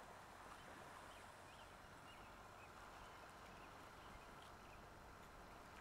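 Near silence: faint steady outdoor hiss with a few faint, short bird chirps.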